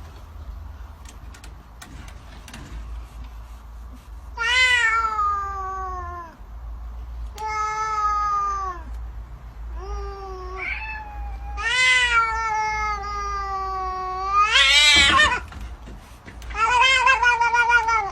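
Domestic cat meowing repeatedly: about six long, drawn-out meows starting about four seconds in, mostly falling in pitch, with a louder rising one near the end.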